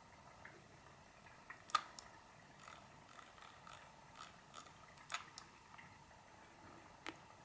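Logitech computer mouse clicking: a sharp click about two seconds in, a run of fainter irregular clicks from its scroll wheel or buttons, and one more click near the end.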